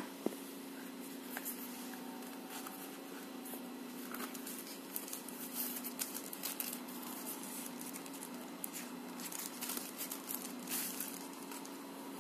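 Crinkling of a plastic packaging sleeve and scattered small clicks and taps as a smartphone is unwrapped and handled, over a steady low hum.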